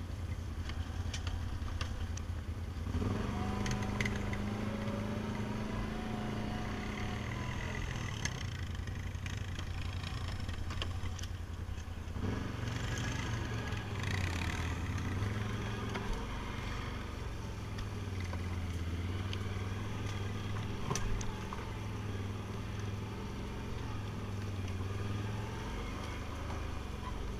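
ATV engine running while the machine is ridden, its pitch changing with the throttle, with a few knocks and rattles over rough ground.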